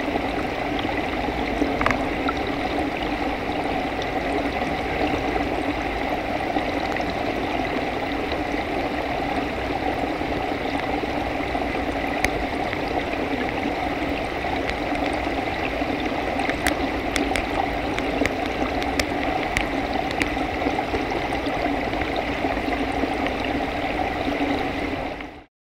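Underwater hydrophone recording of an edible urchin (Echinus esculentus) grazing on a mussel: sharp clicks and crackles of its teeth on the shell, scattered throughout and thickest about two-thirds of the way in, over a steady rushing of the tank's water.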